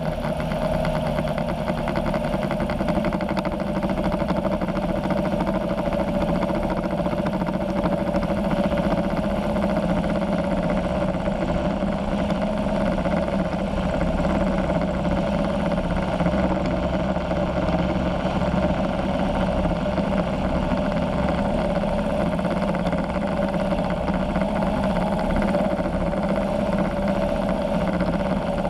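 Polini 250 two-stroke engine of a weight-shift trike ultralight running steadily at cruise power in flight, its propeller turning, with wind noise over it.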